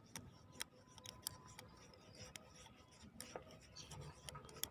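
Near silence: a low hiss with faint, irregular sharp clicks, several a second.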